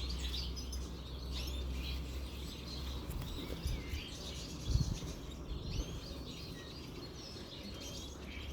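Small songbirds chirping and twittering, many short high calls overlapping. A low rumble runs under the first few seconds, and a single brief thump comes about halfway through.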